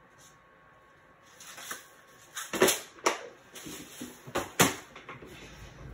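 Hands rummaging through small jewelry-making parts for another small metal jump ring: a run of irregular sharp clicks and light rustling that starts about a second and a half in.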